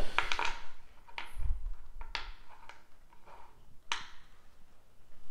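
Dice and chips being handled at a craps table: three sharp clicks spread over a few seconds, with a soft low thump just after the first.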